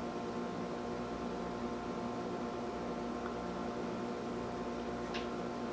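Steady electrical-sounding background hum made of several even tones over a faint hiss, with one small click near the end.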